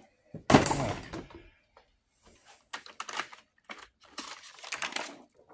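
A cardboard tool box being handled and set down, with a loud scrape-and-thump about half a second in, followed by scattered light clicks and rustles as the steel taps and dies in their plastic case are handled.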